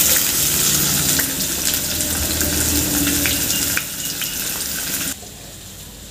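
Freshly chopped onions sizzling as they drop into hot oil in a wok, stirred with a wooden spatula. About five seconds in, the sizzling suddenly drops to a much quieter level.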